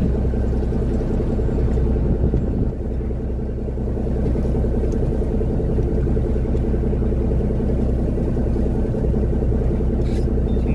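A fishing boat's engine running steadily, a low even drone.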